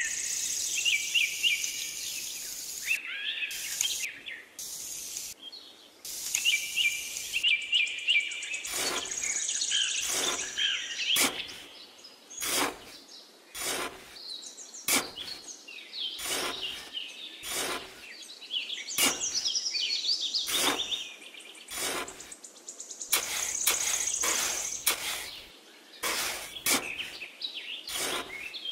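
Birds chirping in the background, with a small metal hand trowel scraping and scooping damp sand in short strokes, about one a second, from about eight seconds in.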